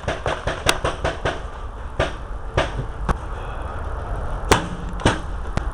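Paintball marker firing a rapid string of shots, about eight a second, that stops a little over a second in, followed by single shots every half second to second and a half. A steady low rumble underlies the shots.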